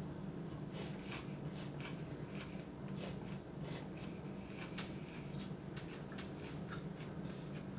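A person eating rice vermicelli noodle soup: a series of short, irregular slurps and chewing noises as noodles are drawn into the mouth, over a steady low hum.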